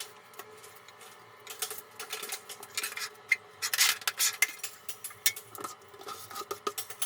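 Hand tools clinking, tapping and scraping against ceramic tile in irregular strokes, as in tile repair work.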